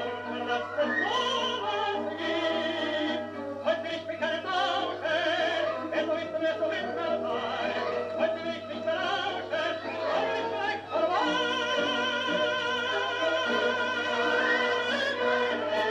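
A 1935 Odeon 78 rpm shellac record playing through a 1956 Philips radiogram's built-in loudspeaker: an operetta tenor singing with orchestra, his voice wavering with vibrato and holding a long note from about eleven seconds in. A steady low hum runs underneath.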